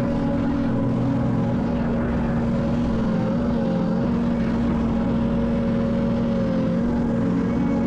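Diesel engine of heavy earth-moving equipment running steadily, a continuous low hum with a higher tone that wavers slightly.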